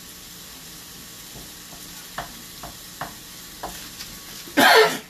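Shredded jackfruit sizzling in a frying pan on a gas stove while a wooden spoon stirs it, with a few sharp taps of the spoon against the pan. A brief loud burst of noise comes near the end.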